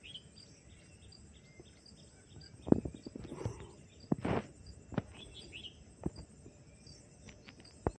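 Faint outdoor insect chirping, a steady high pulsing about twice a second, with a few short bird-like chirps and several scattered soft knocks.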